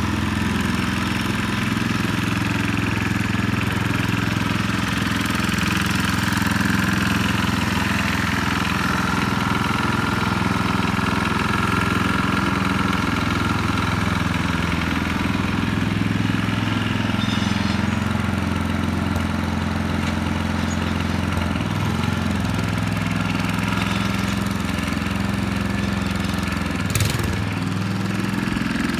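1968 Sears Suburban 12's Tecumseh HH120 single-cylinder engine running steadily at idle, with one sharp click near the end.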